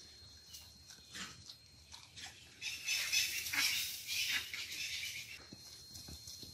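African wild dogs at a kill giving short, high-pitched twittering and yelping calls, with a louder burst of noisy sound from about three to four and a half seconds in.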